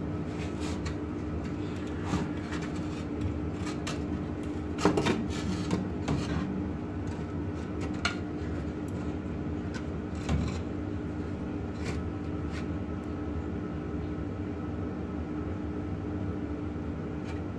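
Pallet-wood boards being handled and set into a wooden cabinet frame, giving scattered wooden knocks and scrapes with a louder cluster about five seconds in. A steady low hum runs underneath.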